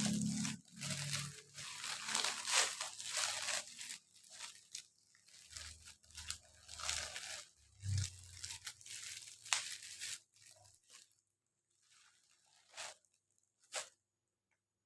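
Packaging being handled during an unboxing: irregular rustling and crinkling bursts that thin out after about ten seconds and stop shortly before the end.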